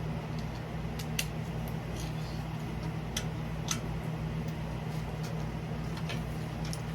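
A steady low hum with a few sparse, light clicks and taps, as of engine parts and hand tools being handled during a teardown.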